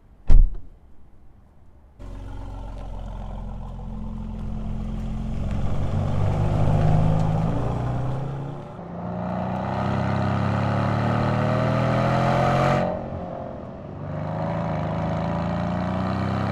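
A single loud thump just after the start. Then the Mercedes-AMG C 63 S's 4.0-litre twin-turbo V8 runs under acceleration, its note rising in pitch through several pulls. It breaks off sharply about 13 seconds in and climbs again from about 14 seconds.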